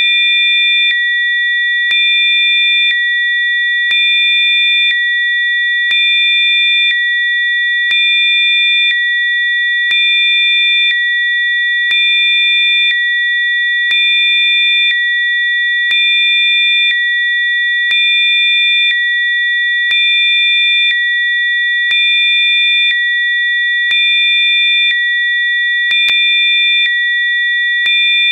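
Synthesized Rife-frequency sine tones: several steady, high electronic pure tones sounding together. A fainter low tone switches on for one second and off for the next, with a faint click at each switch.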